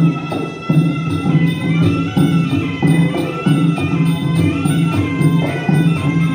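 Traditional Kun Khmer ringside fight music: a high reed-pipe melody over a steady, regular drum beat.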